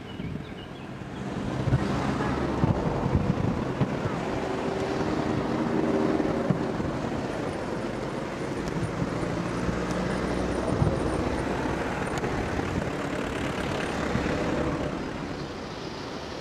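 A steady engine-like drone with a low hum, rising about two seconds in and easing off near the end.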